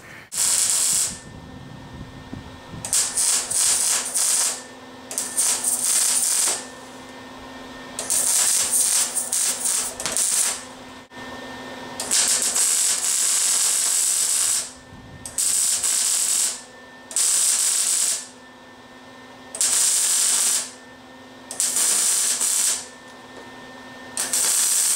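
Electric arc welder laying short welds: about ten crackling bursts of one to two seconds each, with a steady low hum in the pauses between them.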